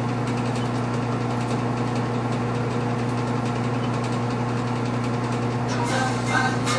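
Steady low machine hum with a few faint higher overtones. Music starts quietly near the end.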